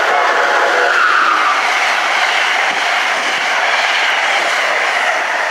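Amtrak passenger train passing close by at speed: a loud, steady rush of wheels on rail with a high screech. The tail of its horn dies away about a second in.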